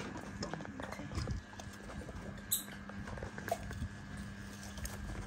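Scattered light knocks, taps and scrabbling as young monkeys move about and handle watermelon rind in a plastic basin, with a sharper click about two and a half seconds in. A faint steady hum runs underneath.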